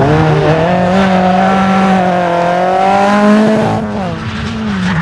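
Rally car engine at full throttle: the revs jump at the start, climb steadily for about three and a half seconds, then fall away near the end.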